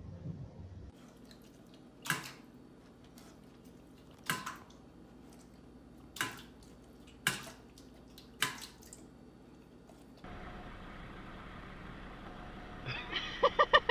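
Sharp metallic clinks from a dog's steel food bowls, five separate knocks a second or two apart, as the dog eats and drinks from them. After a cut there is a steady low background, and a quick run of short pitched sounds comes near the end.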